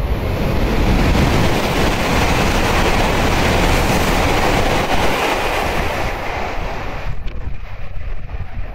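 Ten-car JR East Series E5 Shinkansen train passing through a station at speed without stopping: a loud rush of air and running noise that holds for about five seconds. It falls away about seven seconds in as the last car goes by, leaving wind buffeting the microphone.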